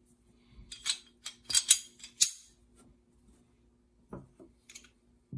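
Sharp metal clicks and clinks of a Sig Sauer P320 X5's heavy barrel being fitted into the slide, followed about four seconds in by a few softer knocks of the parts being handled.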